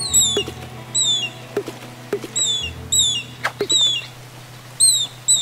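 A string of short, high squeaks, each falling in pitch and several coming in quick pairs, played as a cartoon sound effect over soft background music.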